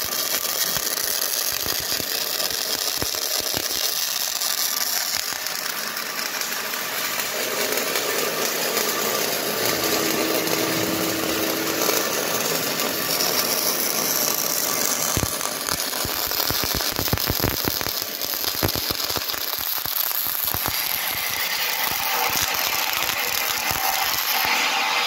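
Electric arc welding on steel: the welding arc keeps up a steady crackling sizzle.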